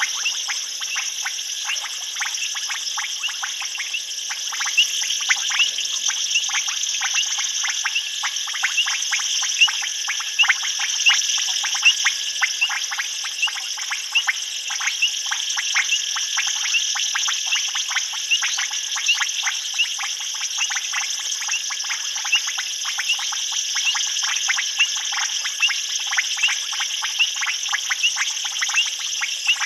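Night chorus of frogs: many short, sharp calls, several a second, over a steady high-pitched insect trilling.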